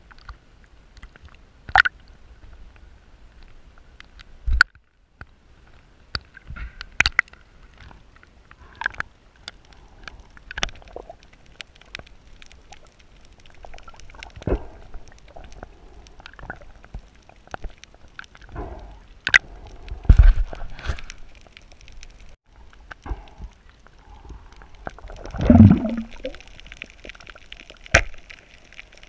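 Underwater sound during a night spearfishing dive: water sloshing and gurgling, broken by scattered sharp clicks and knocks. About 25 seconds in comes a louder, lower burst of sound.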